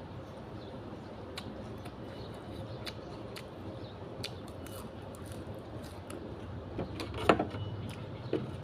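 Eating sounds from a bowl of pork noodle soup: scattered light clicks of utensils and chewing over a low background hum, with a louder clink or slurp about seven seconds in.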